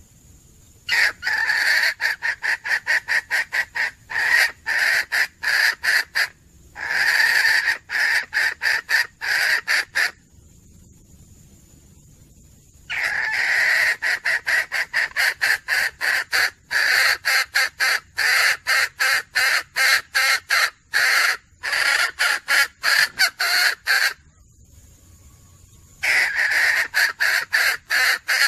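Female red junglefowl calling in rapid bouts of short clucks, about four a second. Each bout opens with a longer drawn note, and there are pauses of a second or more between bouts. It is the hen's call that draws roosters to her.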